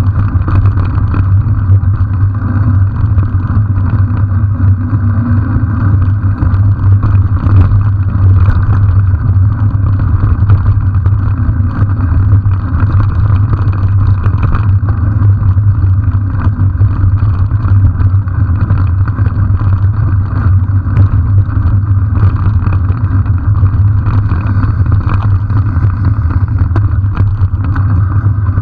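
Steady rumble and rush of wind on the microphone of a camera riding along with a bicycle on a rough dirt road, with many small knocks and rattles from the bumps.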